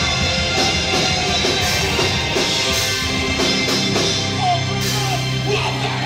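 Live rock band playing loud, with electric guitars, bass guitar and drums, and a vocalist's voice over the music in the second half.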